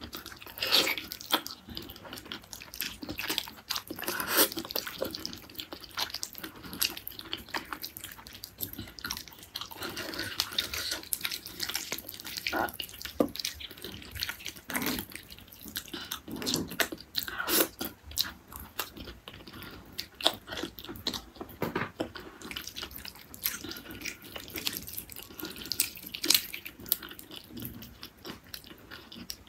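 Close-miked eating of beef tendon curry: wet, sticky biting and chewing of gelatinous tendon, mixed with squelching as fingers tear the curry-coated tendon off the bone. Many irregular sharp wet clicks throughout.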